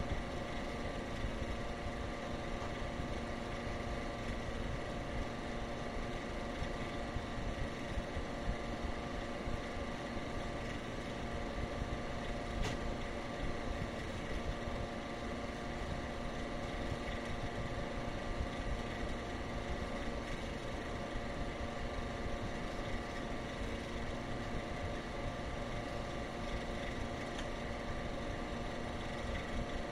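Steady vehicle drone, even and unchanging, with several constant hums running through it.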